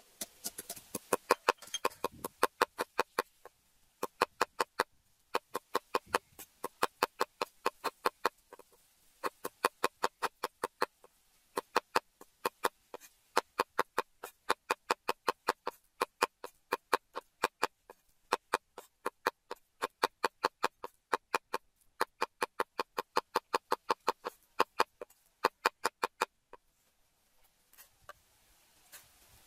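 Rhythmic knocking of food being pounded and chopped: a wooden pestle in a mortar, then a heavy knife striking a wooden chopping board as it minces raw fish into a paste. The strokes come about three to four a second in runs of a few seconds with short pauses between.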